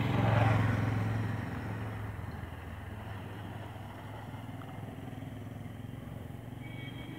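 A motor vehicle's engine running with a steady low hum, loudest about half a second in, then easing to a steady level.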